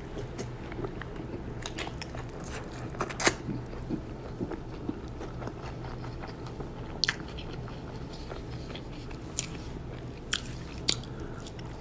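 A person chewing and biting crunchy food close to the microphone, with scattered sharp crunches, the loudest about three seconds in. A low steady hum runs underneath.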